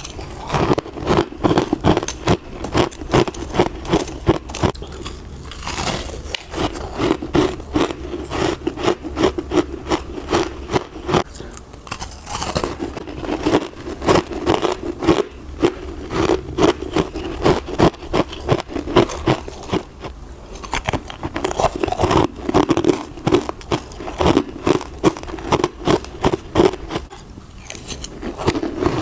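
Close-up crunching of hard frozen ice pieces mixed with crispy dry frost being bitten and chewed, a rapid, uneven run of sharp cracks and crunches with short pauses between mouthfuls.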